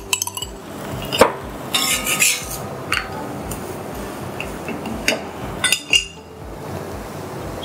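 Kitchen utensil clatter: a spoon and a small bowl clinking and knocking against a dosa tawa as a wheat parotta cooks, with several sharp clinks spread over the few seconds.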